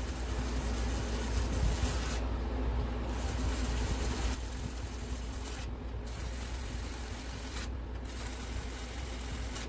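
Hand tools working on a motorcycle engine during disassembly: steady metal-on-metal rubbing and scraping over a low hum.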